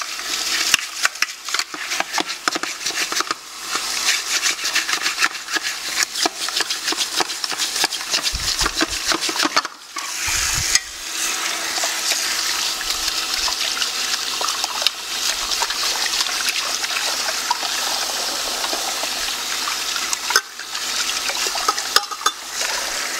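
Kitchen tap running onto stainless steel juicer parts held under it in a sink, the water splashing off the metal, with frequent clinks and knocks of the steel parts being turned and handled. The water noise dips briefly about ten seconds in.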